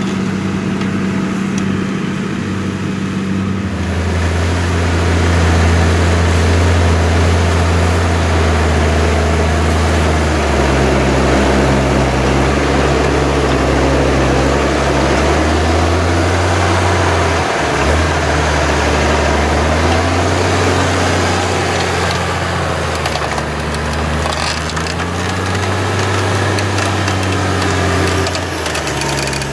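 New Holland T7060's six-cylinder turbo diesel running under steady load while ploughing, its pitch and loudness shifting a few times, with a broad crackling, rushing noise over it.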